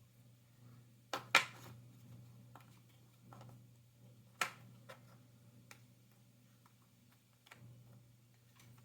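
Jigsaw puzzle pieces being handled and set down on a hard surface: a few short, sharp taps and clicks, the loudest a pair about a second in and another about four and a half seconds in.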